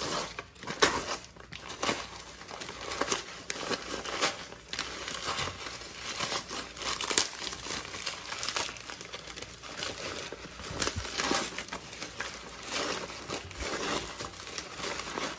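Newspaper and plastic packing wrap being torn and crumpled by hand, an irregular, continuous crackling and rustling.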